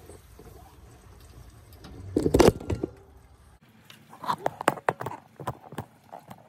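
Irregular clicks and knocks of metal bracket hardware being handled and slid into an aluminium roof-rack channel, with one louder clunk about two seconds in and a quick run of sharper taps near the end.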